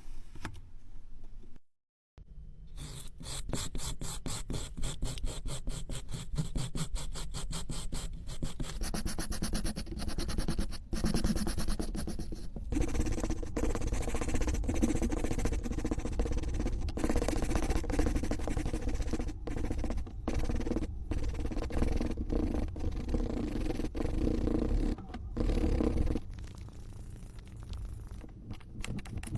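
Kinetic sand being cut and scraped: a fast run of crisp, crunchy strokes and rasping scrapes, broken by a brief gap about two seconds in.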